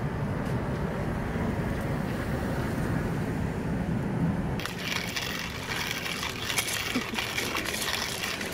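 Hand-cranked coffee mill grinding whole coffee beans: a dense, gritty crackle of beans being crushed that starts about halfway through. Before it there is a low, steady rumble.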